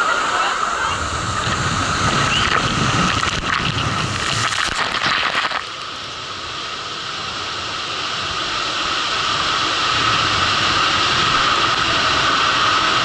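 Water rushing and a raft sliding fast down a water slide, heard from a camera on the rider: a loud hiss of water and air. It drops suddenly about five and a half seconds in, then builds again to a steady rush.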